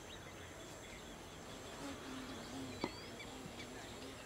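Faint open-air ambience: a steady background hiss with scattered short bird chirps, and one sharp click a little under three seconds in.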